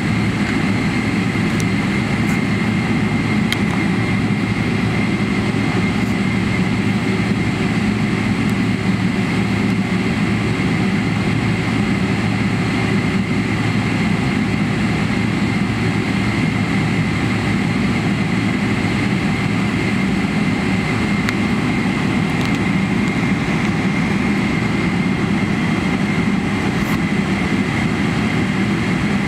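Steady cabin drone of a Boeing 777-300ER on the ground, its GE90 engines running at low power, heard from inside the cabin. A constant high whine rides over a low hum, unchanging throughout.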